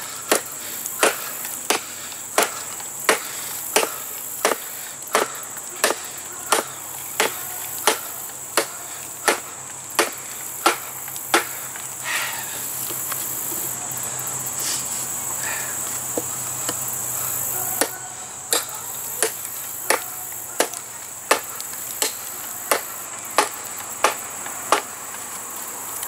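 Ontario Knife Company SP8 machete chopping into a log, sharp blows at a steady pace of about three every two seconds; the chopping pauses for several seconds about halfway through, then picks up again at the same pace. Insects shrill steadily underneath.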